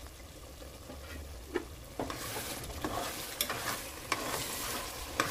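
A spoon stirring mutton and masala in a pressure cooker, scraping and knocking against the pot with many sharp clicks, starting about two seconds in, over a light sizzle.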